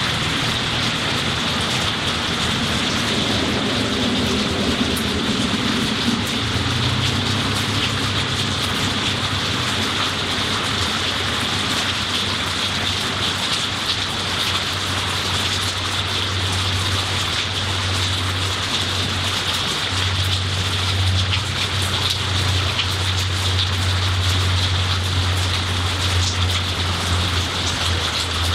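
Heavy rain falling steadily on tree leaves, lawn and garden, a dense, even hiss. Beneath it runs a low, steady rumble that grows stronger from a few seconds in.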